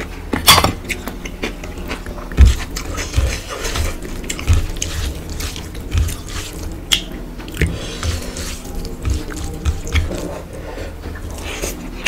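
Hand-eating sounds: fingers mixing rice and curry on a steel plate with irregular light clinks and squelches, and mouthfuls being chewed with lip smacks.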